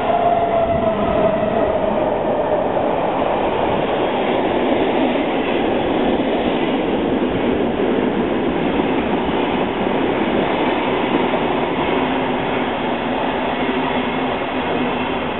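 SBB train passing through the station: a steady, loud rush of wheel and rail noise, with a whine that falls slowly in pitch over the first few seconds.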